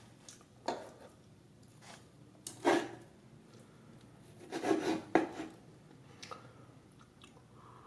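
Knife scraping and sawing through a large bone-in tomahawk steak, with a few separate knocks and scrapes.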